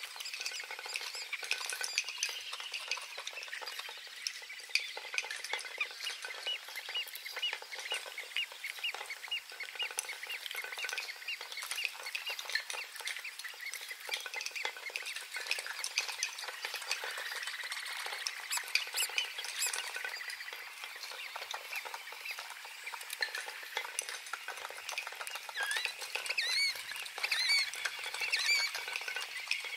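Small birds chirping and twittering over a steady crackling hiss, with a quick run of repeated chirps about a quarter of the way in.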